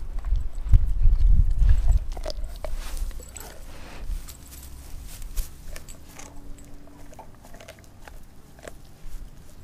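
A Doberman gnawing a raw frozen pig's foot: scattered crunches and clicks of teeth on bone and gristle. Low rumbling thumps fill the first two seconds, then the chewing goes on more quietly.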